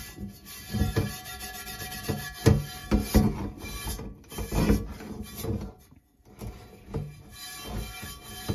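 A scrubby pad scraping and rubbing across the inside of a warm cast iron skillet in a stainless steel sink, in irregular strokes with occasional knocks. The scrubbing stops briefly about six seconds in.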